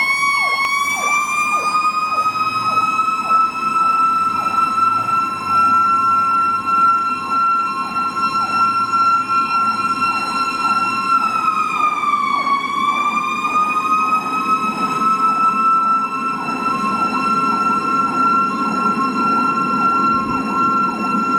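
Seagrave fire engine responding with its siren on. A high wail winds up and holds steady, drops briefly about twelve seconds in, then winds back up. Underneath runs a faster, rapidly cycling siren tone and the truck's engine.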